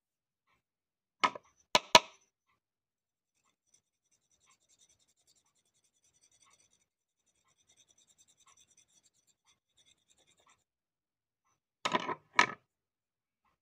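A small knife blade scraping along a dandelion root, faint and scratchy, between sharp knocks and clatters: three about a second in and two more near the end.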